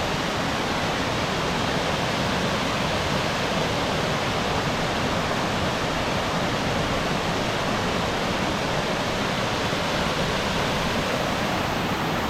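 Waterfall rushing, a steady unbroken wash of falling water that doesn't change in level.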